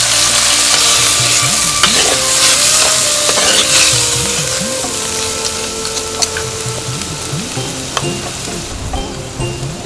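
Prawns sizzling as they fry in a clay pot, stirred with a wooden spoon; the sizzle is strongest in the first half and fades after about five seconds. Soft background music plays underneath.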